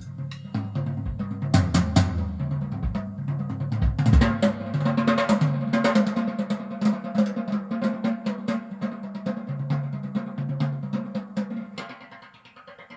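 Music with a drum kit and a stepping bass line, growing quieter near the end.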